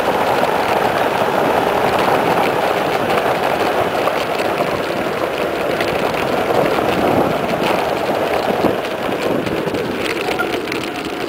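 Steady rushing noise of a mountain bike coasting fast down an asphalt road: wind over the microphone mixed with the hum of the tyres on the tarmac. It eases a little near the end.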